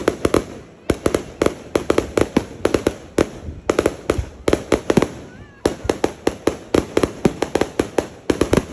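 Fireworks display: a rapid run of sharp bangs and crackles from shells bursting, several a second, with brief lulls about a third and halfway in.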